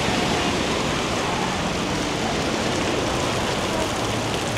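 Steady rushing of falling water from a water park's water features.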